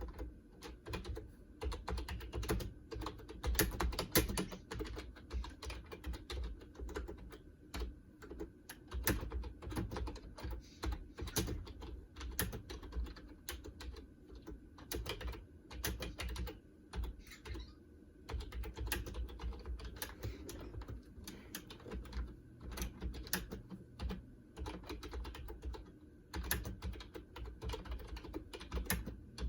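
Typing on a Lenovo KUF0452 rubber-dome keyboard: a steady, uneven run of soft key clicks and thuds with brief pauses, a few keys landing louder than the rest.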